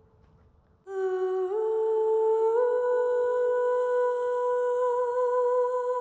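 Relaxing background music: a held note with a soft, hum-like tone comes in about a second in. It slides up in pitch twice, then holds steady.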